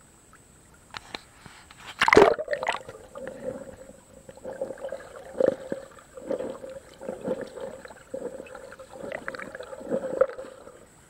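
A camera plunges under the river surface with a splash about two seconds in, then records muffled underwater sound: a steady hum with irregular sloshing thumps about once a second as someone wades over the riverbed.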